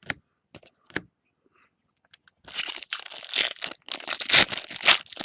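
A trading-card pack's wrapper being torn open and crinkled. The crackling starts about two seconds in, after a couple of light clicks.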